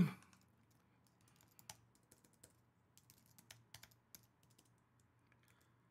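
Faint typing on a computer keyboard: a brief run of separate keystrokes starting about a second and a half in and stopping about a second and a half before the end.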